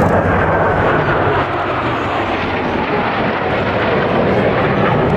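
Four Blue Angels F/A-18 Hornet jets flying over in close diamond formation: a loud, steady jet roar, with a whine that falls in pitch during the first second or two as they pass.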